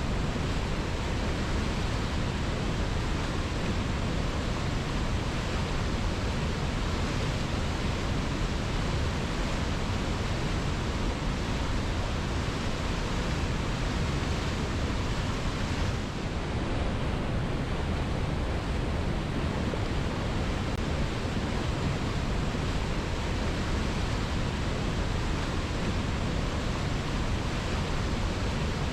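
Waterfall cascading over rocks: a steady, even rush of falling water, with a brief slight dip about sixteen seconds in.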